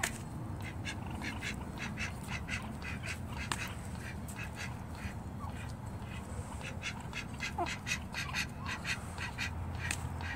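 A hen pecking mealworms from a plastic tub, heard as quick irregular runs of short taps, mixed with duck quacks.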